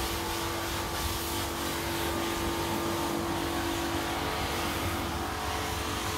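A steady machine drone with a constant hum that does not change.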